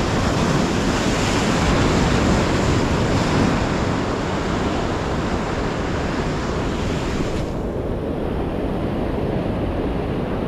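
Waves washing on the shore with wind buffeting the microphone, a steady rushing noise; the higher hiss falls away about three-quarters of the way through.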